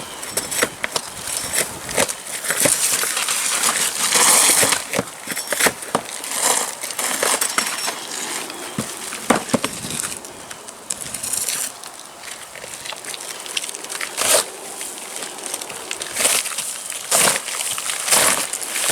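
Old asphalt shingles being torn off a roof: roofing shovels scraping and prying up shingles, with crunching and irregular sharp cracks and knocks throughout.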